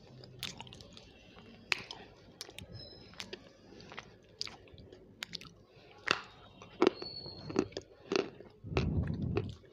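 Close-miked mouth sounds of biting and chewing food: wet clicks and smacks scattered through, with a few louder ones in the second half and a low rumbling stretch near the end.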